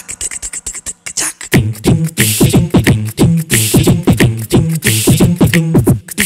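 Beatboxing in a layered, all-voice a cappella arrangement: mouth clicks and hissing hi-hat sounds keep a sparse rhythm at first. About a second and a half in, a steady groove starts, with deep vocal bass notes that slide down in pitch on the beats.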